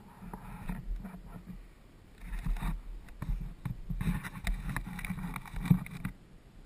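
ATV on a rough trail: uneven engine and riding noise surging and dropping, with many sharp knocks and rattles from the machine going over bumps.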